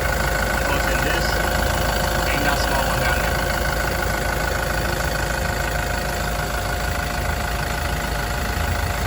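Yale diesel forklift engine idling steadily, running again on its cleaned-out fuel filter after a clogged filter had caused a crank-no-start.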